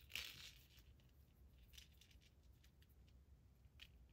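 Near silence, with a few faint handling clicks and rustles of jewelry being sorted by hand, the loudest just at the start.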